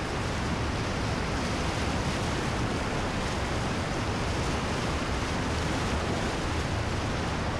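Fast-flowing river water rushing and churning around concrete bridge piers: a steady rushing noise, heaviest in the low end.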